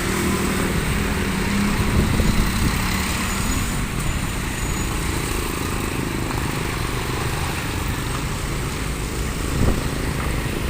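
Heavy diesel vehicle going past close by: a steady low engine rumble with road and traffic noise. It swells slightly about two seconds in and again near the end.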